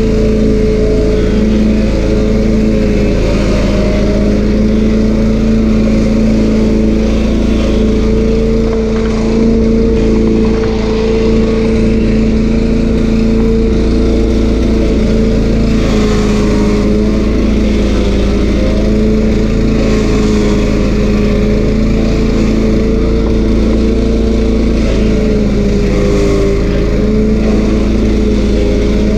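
Stump grinder's 13 HP Honda engine running steadily under throttle, its pitch wavering slightly up and down.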